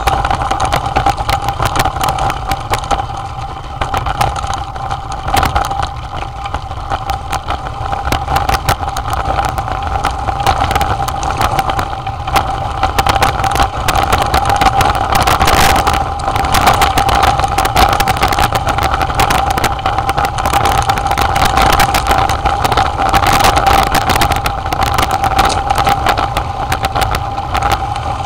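Rough ride down a rocky dirt trail, heard from a mounted camera: a constant rumble with rattling knocks from the bumps, over a steady high whine.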